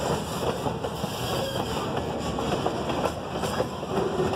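Freight cars rolling past close by: steel wheels clattering over the rails in an uneven run of clicks and clanks, with short squealing tones from the wheels now and then.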